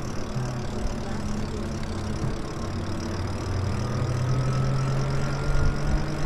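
Lyric Graffiti e-bike riding along a street: a steady low hum from the drive with tyre and wind noise, and a faint whine that rises slowly in pitch from about three seconds in. It grows a little louder near the end.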